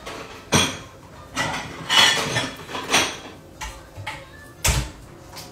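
Dishes clinking and knocking as a plate is taken down from a kitchen cabinet: a string of separate clinks and knocks, the heaviest a thud near the end.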